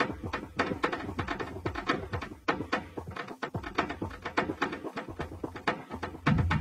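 Electronic dance music stripped back to a fast run of percussive clicks and taps, with no deep bass, until a heavy bass line comes in near the end.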